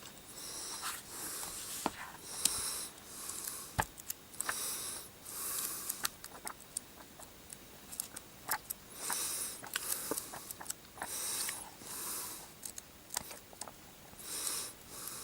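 Heavy breathing close to the microphone: loud hissing breaths every couple of seconds, with sharp clicks and rustles between them.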